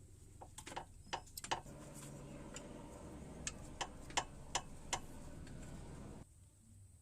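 A series of sharp metallic clicks and ticks from hand tools working on a car's front suspension, irregular at first and then coming about three a second. Underneath is a steady hum that cuts off suddenly near the end.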